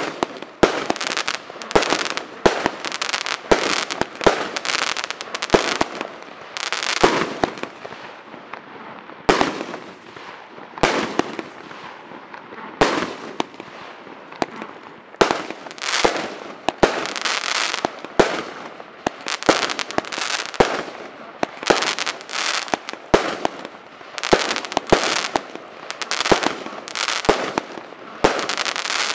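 Weco 'Hurricane' firework cake (item 7335) firing shot after shot: sharp launch reports and star bursts about one to two a second, thinning out briefly about a third and half of the way through before picking up again.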